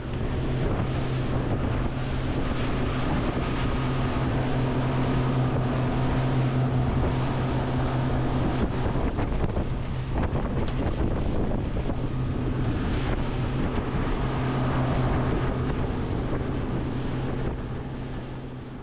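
Boat engine running steadily at cruising speed, a constant low hum, with wind buffeting the microphone and water rushing along the hull. It fades away near the end.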